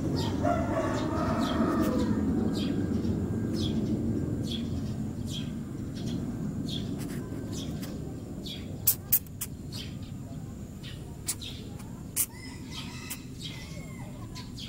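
Longhorn beetle stridulating as it is handled: a regular series of short, sharp squeaks, about one to two a second, made by rubbing its thorax segments together as a defensive reaction. A low rumble underlies the first half and fades away.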